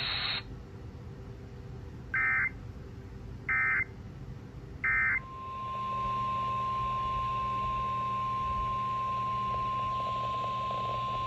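NOAA Weather Radio emergency alert tones. Three short screeching bursts of SAME digital header data come about 1.4 s apart. About five seconds in, the steady single-pitch 1050 Hz warning alarm tone starts, announcing a new warning.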